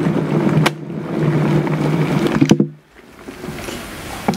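Electric kettle humming steadily on its base as it heats water, with two sharp clicks; after the second click, about two and a half seconds in, the hum stops. Hot water then starts pouring into a glass beaker, the splashing growing near the end.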